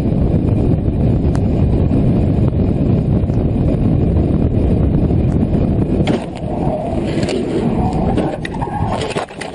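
Loud, steady rumble of a truck's engine and road noise heard from inside the cab while driving. Near the end there are a few sharp clatters and knocks as the cab is jolted in a crash.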